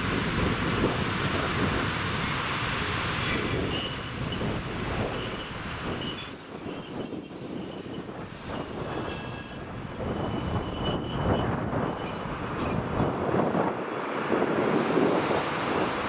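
Railway wheels squealing on the track with a steady, high-pitched tone that holds for about ten seconds and stops a couple of seconds before the end, over continuous low rolling noise.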